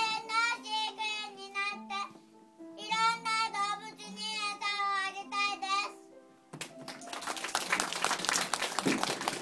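A group of young children singing in unison over steady held accompaniment notes; the song ends about six and a half seconds in and is followed by applause, dense clapping.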